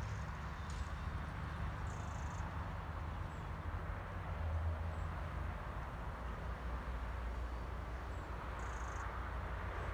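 Steady rushing of the River Wharfe's shallow flow, with wind rumbling on the microphone. Two short high chirps, about two seconds in and again near the end.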